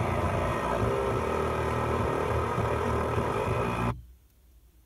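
Geely car radio head unit playing through the car's speakers, then muting abruptly about four seconds in as it switches to FM 90.0. What follows is near silence with a few faint clicks.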